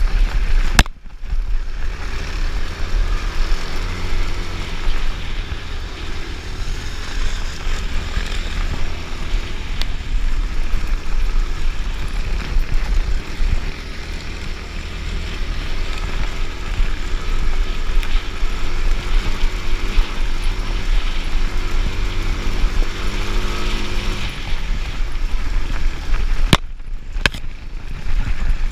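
Suzuki DRZ 400 trail bike's single-cylinder four-stroke engine running while riding up a stony off-road track, heard through heavy wind buffeting on a helmet-mounted camera. The sound cuts out briefly about a second in and again near the end.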